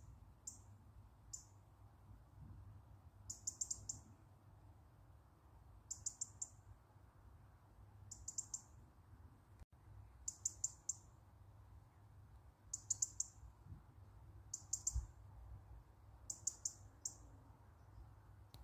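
A robin calling: short bursts of rapid, high-pitched ticks, repeated every second or two.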